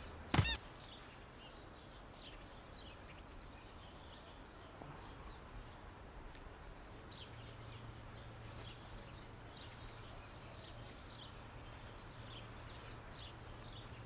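Quiet rural outdoor ambience with small birds chirping now and then. A brief loud pitched sound comes about half a second in, and a low steady hum sets in about halfway through.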